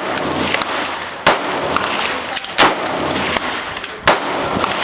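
Three rifle shots from a scoped AR-style rifle, most likely a Stag Arms Model 8, each a sharp crack with a short echo after it, fired about a second and a half apart at steel targets.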